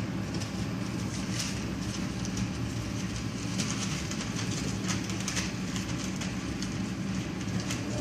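Newspaper crinkling and rustling in short bursts as three-week-old boxer puppies scramble over it, over a steady low hum.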